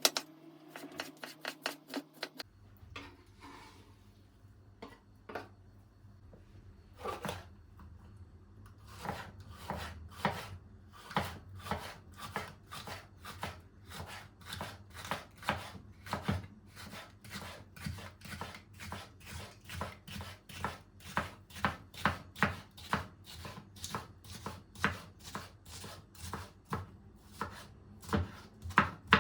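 Kitchen knife chopping food on a cutting board: a quick flurry of strokes at first, then steady chopping at about two strokes a second.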